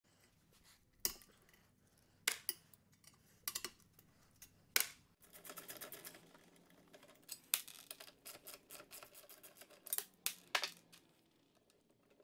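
Sharp metallic clicks and clinks of exhaust springs being unhooked with a spring-puller hook, and of the old exhaust pipe being worked loose from a scooter engine, with softer scraping and rattling between the clicks.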